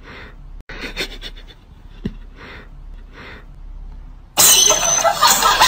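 A few short breathy puffs, about one a second. About four seconds in, loud beatboxing-style music cuts in abruptly.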